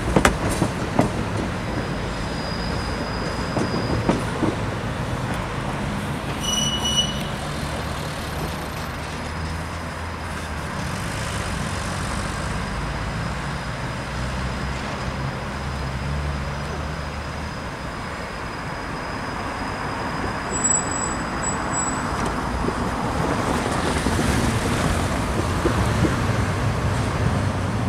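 A 71-933 "Lev" low-floor articulated tram pulling away from a stop and rolling off round a curve, its electric traction drive humming and stepping in pitch under wheel-on-rail running noise. A few brief high-pitched tones come through, and near the end the tram fades into general traffic noise.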